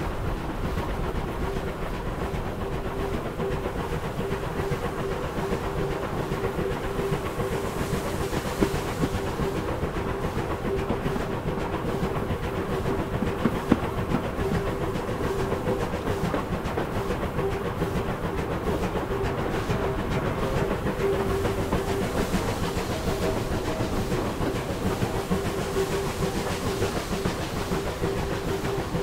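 Steam-hauled train behind a Bulleid Battle of Britain class Pacific running steadily along the line: a constant rolling rumble with a steady hum and a light hiss, and an occasional sharp click from the wheels and track.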